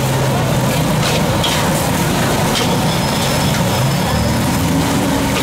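Metal ladle scraping and knocking against a wok while noodles are stir-fried, over a loud steady roar of background noise. A low engine-like hum grows louder about four seconds in.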